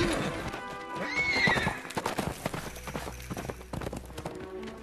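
A horse whinnies once about a second in, with hooves clopping throughout and film-score music underneath.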